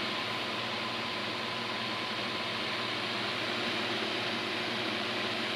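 Steady hiss of weather-radio static between broadcasts, with a low electrical hum under it and a faint high steady tone for the first couple of seconds.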